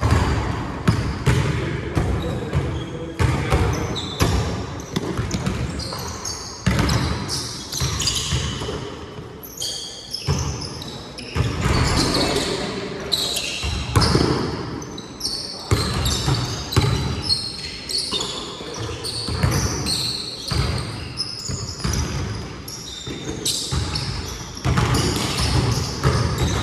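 Basketball game on an indoor court: the ball bouncing again and again on the floor amid players' voices.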